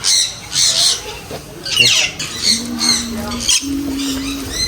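Parrots squawking and screeching, a string of short, harsh calls that rise and fall in pitch. Two low, steady held tones come one after the other past the middle.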